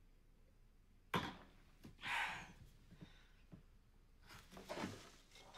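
A single sharp knock of a glass set down on a hard counter, about a second in, then a soft breathy exhale and faint small clicks and rustles against quiet room tone.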